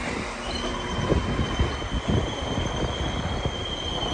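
A train running slowly on the rails with a steady high-pitched wheel squeal starting about half a second in, over the low rumble and irregular knocks of the wheels.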